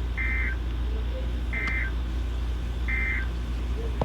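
Three short bursts of NOAA Weather Radio SAME digital data tones, the Emergency Alert System end-of-message signal, each about a third of a second long and a bit over a second apart. A steady low hum runs underneath.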